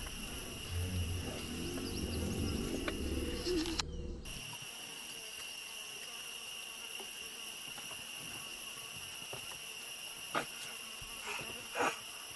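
Forest insect chorus: a steady, high-pitched drone at several pitches. A low rumble underneath cuts off abruptly about four seconds in, and two short sharp sounds come near the end.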